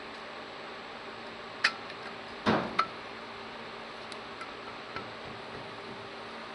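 A few light metallic clicks and knocks as a new bushing is handled and set against the hub bore of a John Deere 4400 combine's centre drive pulley while it is test-fitted. The loudest knock comes about two and a half seconds in, with a second just after, and fainter ticks follow. A steady hiss runs underneath.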